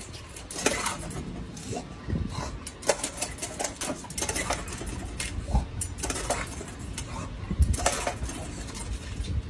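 A bulldog working a foot-pedal dog water fountain: irregular clacks and splatters as the plastic pedal is pressed and the dog snaps at the spurting water, over a low rumble.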